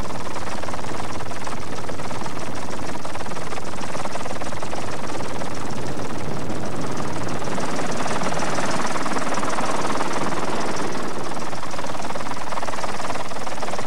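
Steady engine and rotor noise of a helicopter, running at a constant level throughout.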